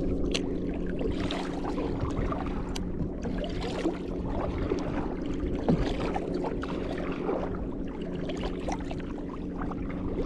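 Kayak paddle strokes: the double-bladed paddle dipping and pulling through lake water with irregular splashes and drips, over a steady low hum.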